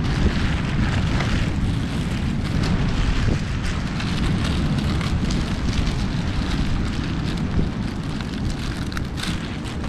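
Wind buffeting the microphone in a steady low rumble, with crackly rustling from the paraglider and its packing being handled.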